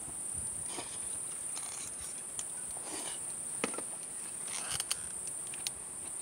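Steady high-pitched chorus of night insects singing, with a few soft clicks and knocks of tableware.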